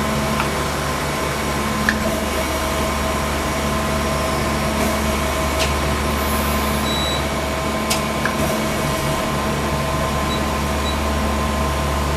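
Okuma LT 200-M CNC lathe running with a steady machine hum made of several steady tones, broken by a few light clicks.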